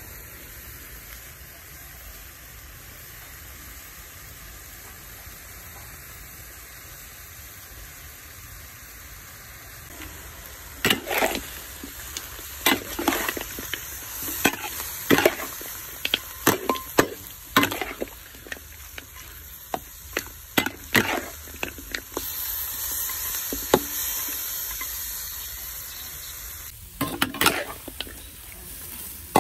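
Duck pieces with lemongrass and chilies sizzling in a large metal wok. From about ten seconds in, a spatula stirs the meat, scraping and knocking against the pan again and again over the sizzle.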